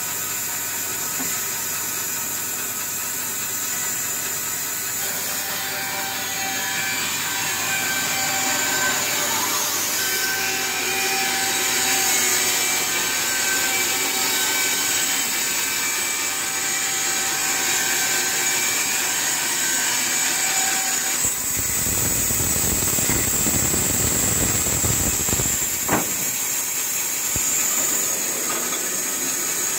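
Holzmann BBS 550 Smart band sawmill running, its blade sawing lengthwise through a log as the saw head is pushed along the rail, with a steady high hiss. About two-thirds of the way through the sound turns deeper and rougher, and a single sharp knock comes a few seconds later.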